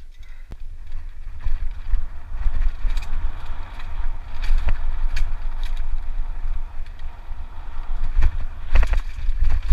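Giant Reign 2 mountain bike descending a rocky trail: wind buffeting the helmet-mounted camera with a heavy rumble, the tyres crunching over stones and the bike rattling and knocking on the rocks. Quieter for about the first second as the bike gets going, with the knocks coming thickest near the end.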